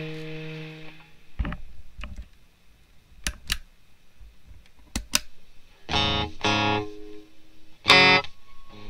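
Electric guitar played through a small amplifier. A chord rings out and fades in the first second, followed by a few scattered clicks. Two short chord stabs come about six seconds in, and a louder short chord comes near the end.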